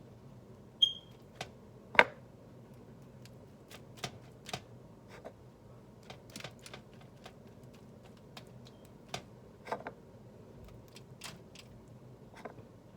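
Irregular light clicks and taps of a butter brush and utensils against a dish while melted butter is brushed onto a raw chicken breast, with a sharper clink about a second in that rings briefly.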